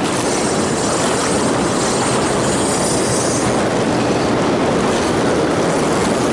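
Steady rush of river water churning through the rapids below a low dam spillway.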